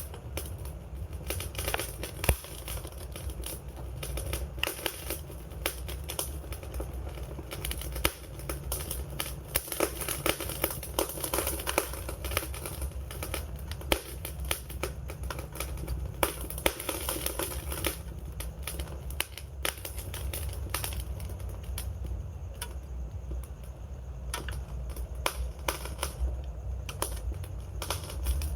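Wood fire crackling, a steady stream of sharp pops and snaps over a low rumble of burning flames.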